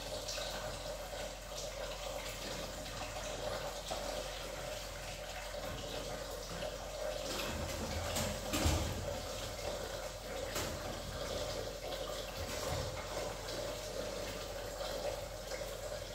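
Tap water running steadily into a kitchen sink while dishes and frying pans are washed, with a sharp knock of cookware about eight and a half seconds in.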